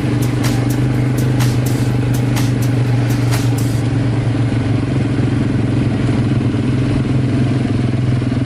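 ATV engine running at a steady pace, a constant low drone with no revving. Sharp regular clicks, about two a second, run over it and stop about four seconds in.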